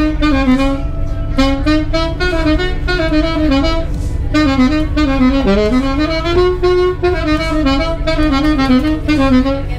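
Background music: a lead melody moving note to note over a steady low backing.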